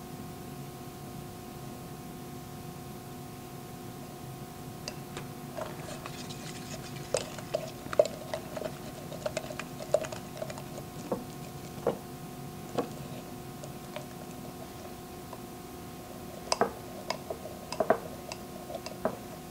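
Wooden stirring stick clicking and scraping against a glass beaker as it stirs thick black glue and iron oxide mixture with borax solution added to make magnetic slime. The clicks are irregular and come in two spells, the second near the end, over a steady low hum.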